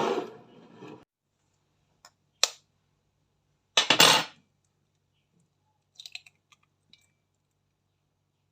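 Kitchen utensils and dishes clinking: a sharp clink about two and a half seconds in, a louder clatter about four seconds in, and a few light taps near the end, over a faint low hum.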